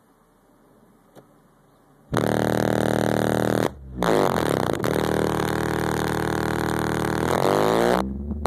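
Kicker L7 15-inch subwoofers playing a bass track inside a car cabin. The track comes in loud about two seconds in after near silence: deep bass notes with sweeping pitch glides, dropping out briefly twice.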